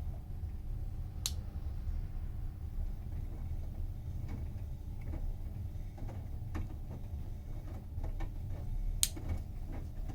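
Bosch washing machine running: a steady low hum with scattered sharp clicks, the two loudest about a second in and near the end.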